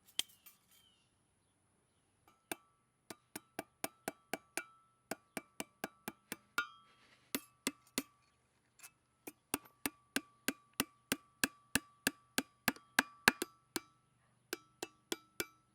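Hammer driving nails through metal strips to fasten an anvil down: a long run of sharp, ringing strikes, about two to three a second, with a few short pauses.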